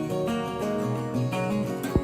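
Background music led by strummed acoustic guitar, with a short knock-like hit near the end.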